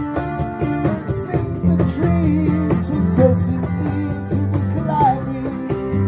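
Live rock band playing an instrumental stretch between sung lines: strummed acoustic guitar, electric guitar and bass guitar over a steady beat on a cajon, with a few bent guitar notes.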